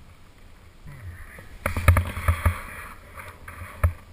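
Skis scraping over firm, chopped-up snow on a steep descent, heard close from a camera worn by the skier. Several heavy thumps come about two seconds in and another just before the end.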